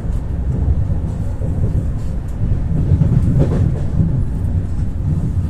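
Ivolga 4.0 electric train running along the track, heard from inside the car: a steady low rumble with faint ticking, and one brief louder swish about three and a half seconds in.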